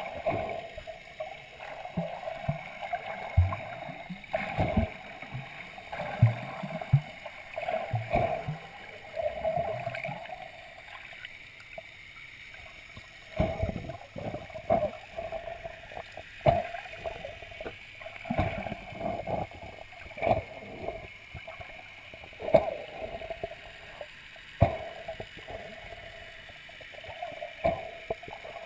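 Muffled water sloshing and gurgling heard through a camera held under water, with irregular knocks and swells every second or two.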